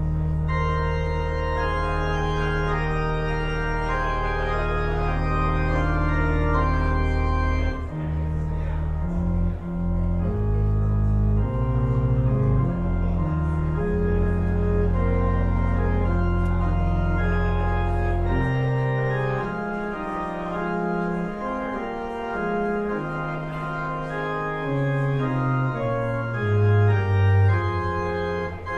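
Church organ playing sustained chords over deep held pedal notes. About two-thirds of the way through, the pedal bass drops out, leaving lighter, moving notes in the upper parts.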